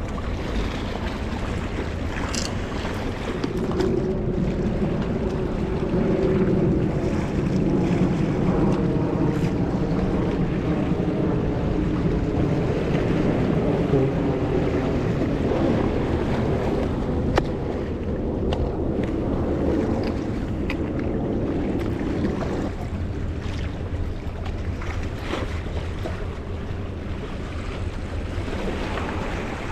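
A boat engine running with a low, steady hum that grows louder a few seconds in and eases off near the end, over wind and waves washing against the shore.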